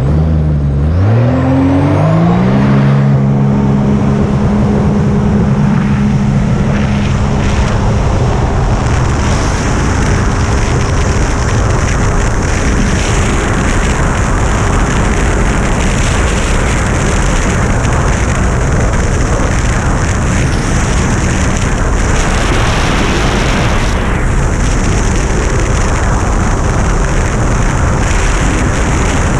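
Jet ski engine revving up as the craft accelerates, its pitch dipping and then climbing in the first couple of seconds before holding steady. A loud, steady rush of wind and water takes over, with the engine running underneath.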